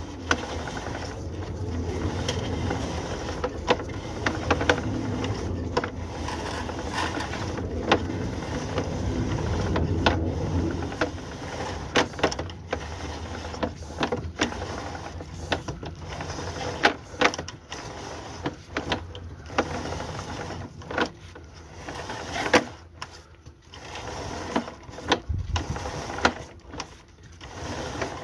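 A small motor running steadily for about the first ten seconds, with many sharp clicks and knocks of mechanical work throughout.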